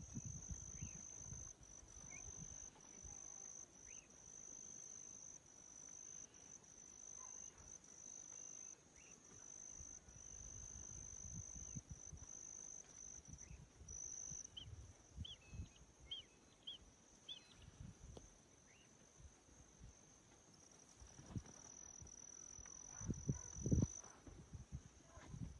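A steady high-pitched insect drone, with a few faint short chirps around the middle and low bumping rumbles near the end.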